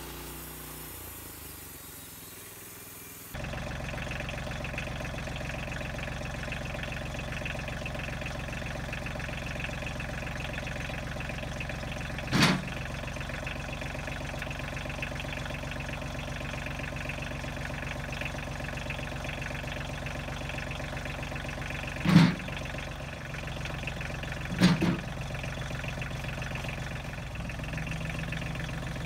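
Compact tractor's diesel engine idling steadily, which sets in about three seconds in after a quieter start. Three loud thumps break in, two close together near the end, as heavy sawn wooden beams are set down in the tractor's steel loader bucket.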